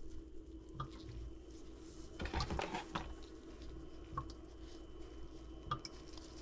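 Wet polished rocks being handled and rubbed in nitrile-gloved hands, with soft squishing of wet gloves and a few light clicks. Near the middle comes a brief, denser scrubbing rustle.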